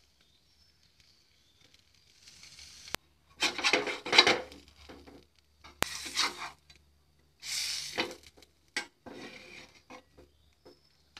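A slotted stainless steel spatula scraping and pressing on a hot, dry tawa as it turns a roti wrap. It comes in four or five rough scraping strokes starting about two seconds in, with a couple of sharp clicks of metal on the pan.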